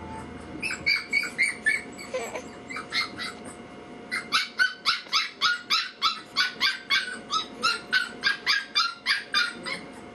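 A rapid series of short, high-pitched animal yips, a few scattered in the first seconds and then a run of about four a second for over five seconds.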